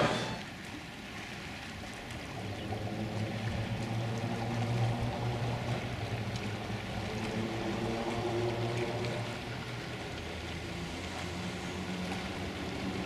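Boat engine running at a steady low hum, with water washing past the hull.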